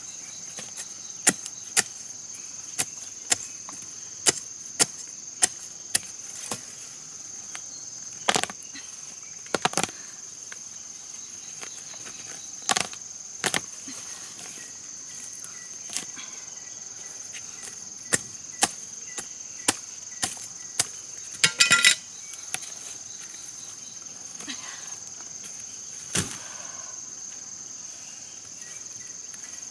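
Sharp, irregular chops of a machete cutting into soil and roots around a giant taro corm, with a quick flurry of strikes about two-thirds of the way through. A steady, high insect drone runs underneath.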